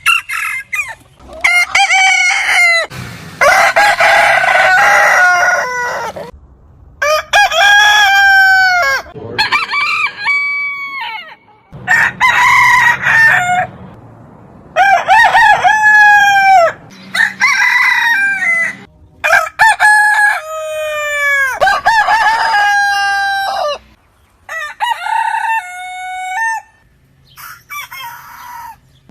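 Roosters crowing one after another, about ten crows in all, each a long drawn-out call that drops in pitch at the end. The crows come at different pitches, from several different birds.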